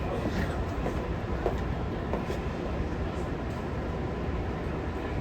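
Interior running noise of a Tokyu 5050 series commuter train under way: a steady rumble of wheels on the rails, with a few faint clicks.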